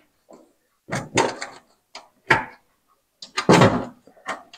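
Metal clicks and scraping as a thin metal strip is pressed and fitted by hand onto the sheet-metal frame of a room heater, over the terminal of a new heating rod: a few short sharp clicks, then a longer scrape about three and a half seconds in.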